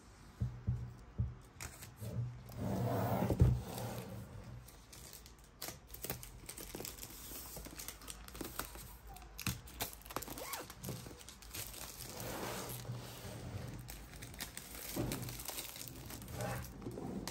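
Clear plastic shrink wrap crinkling and tearing as it is peeled off a laptop box, a steady run of small crackles. A louder stretch of handling ends in a thump about three and a half seconds in.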